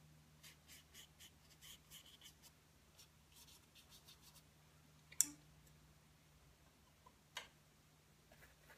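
Bristle brush making quick, short strokes on canvas, laying in oil paint as fur strokes, faint and about three or four a second. The strokes stop a little after four seconds in, then come a sharper tap about five seconds in and another about two seconds later.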